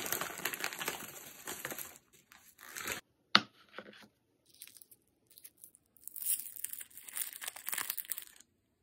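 Crinkling and rustling of a plastic sweet bag and foil-and-paper candy wrappers as wrapped chocolate bonbons are handled, with one sharp click a little after three seconds in. From about six seconds a bonbon's twist wrapper crinkles as it is pulled open, stopping suddenly shortly before the end.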